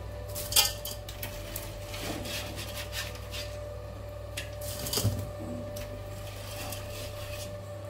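Cleaned crab pieces being handled in an aluminium bowl in a steel sink: light clatter of shells against metal with scattered knocks, the sharpest about half a second in and another about five seconds in.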